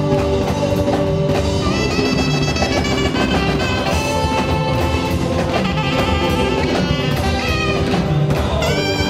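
Live gospel band playing: drum kit and keyboard keep a steady groove while a saxophone plays long held lead notes, coming in about two seconds in.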